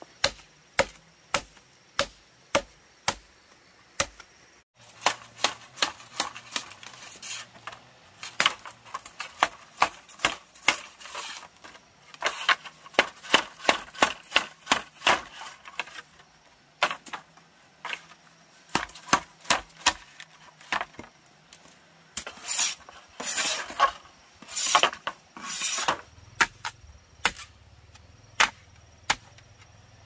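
A long series of sharp knocks, like blade or tool strikes. They come evenly at about two a second at first, then faster and uneven with a scraping, rustling noise between the strokes, and they space out again near the end.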